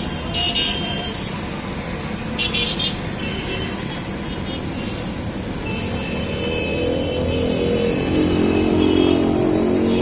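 Loud, steady mechanical running noise that swells from about six seconds in, with short high toots about half a second in and again around two and a half to three seconds.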